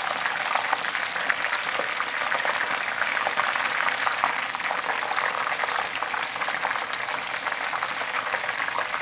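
Battered chicken pieces deep-frying in a pot of hot oil: a steady, dense sizzle full of small crackles. This is the first fry of double-fried Korean market chicken, the meat still pink and undercooked inside.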